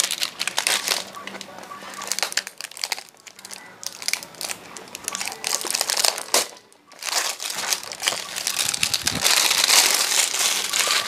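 Clear plastic seal wrap being peeled off a cardboard box and crumpled in the hands: an irregular run of crinkling and crackling, with a short pause a little past the middle and louder toward the end.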